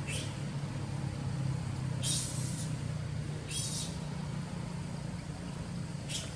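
A steady low hum, like a distant engine, with four short high-pitched bursts over it.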